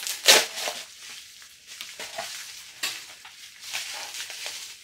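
Packaging crinkling and rustling as a wrapped parcel is pulled out of a padded paper envelope and its silver bubble wrap is handled. The rustles come in uneven bursts, the sharpest about a third of a second in.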